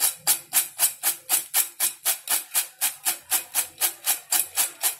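Background music with a steady shaker-like beat, about four strokes a second.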